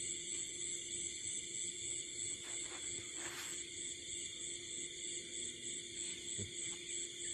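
Night chorus of crickets and other insects: steady high-pitched trilling, one note pulsing quickly, with a brief rustle about three seconds in.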